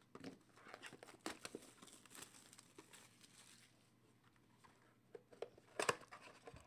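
Faint crinkling and tearing of plastic wrap as a trading card box is unwrapped and opened, with a few sharp clicks near the end.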